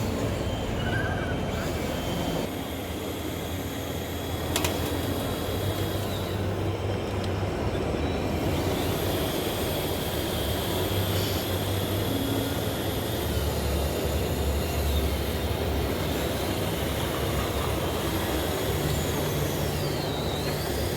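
Radio-controlled scale construction machines working: a steady low motor hum that shifts as they load and unload, with one sharp click about four and a half seconds in.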